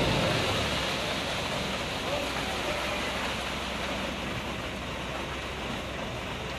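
Concrete mixer truck running while it discharges concrete down its chute: a steady rumble of engine and turning drum. Its deep engine drone drops away in the first second, leaving a lower, even rumble.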